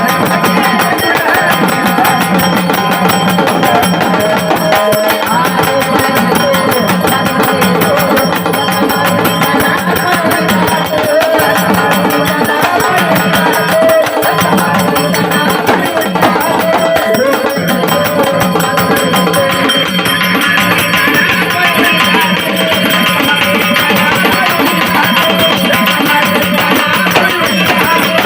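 Traditional Marathi folk music for a gavlan, playing loud and continuous: hand-drum percussion under a wavering melodic line.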